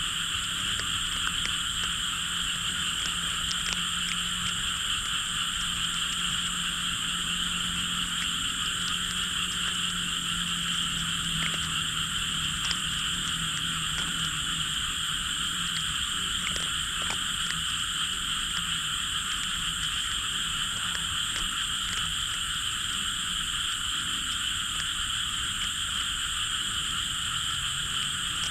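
A dense, steady chorus of many frogs calling at night. A low hum sits beneath it, strongest in the first half.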